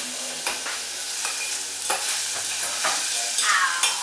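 Onions frying in a pan, a steady sizzle, as they are stirred. A utensil knocks and scrapes against the pan about four times. The onions are being let to brown and catch a little.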